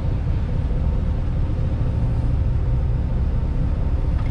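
Party boat's engines running with a steady low drone while the boat is backed into its slip.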